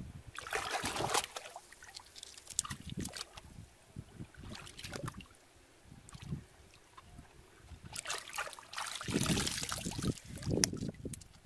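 Hands splashing and sloshing in shallow water, with water trickling back off a cupped hand. It comes in bursts: once near the start, a few short ones in the middle, and a longer stretch near the end.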